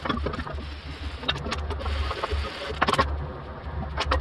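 Scattered metallic clinks and knocks as aluminum step pieces are handled and set in place on a metal welding table, over a steady low hum.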